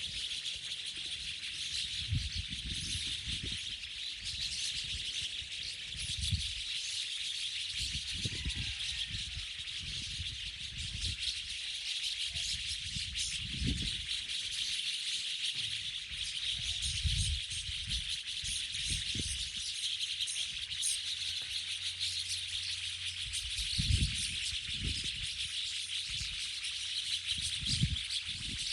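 Dense, unbroken chattering of a large flock of birds crowded in a tree, with irregular low rumbles now and then.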